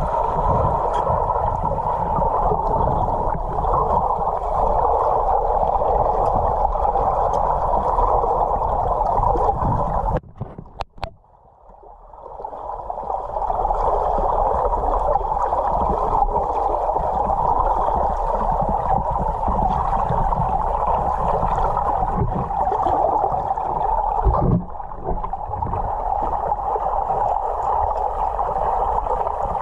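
Muffled underwater noise picked up by a submerged camera: a steady rushing hiss with low rumbles. It drops out briefly about ten seconds in, then returns.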